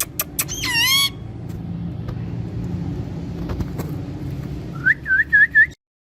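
Parrots making sharp clicks and a falling whistled call in the first second, then a low steady rumble for about four seconds. Near the end come four quick whistled chirps before the sound cuts off suddenly.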